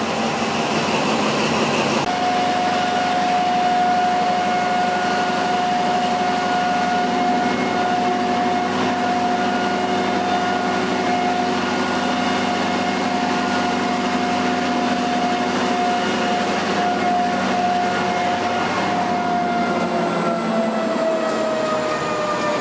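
Train running, with a steady high whine that sets in about two seconds in and slides down in pitch near the end.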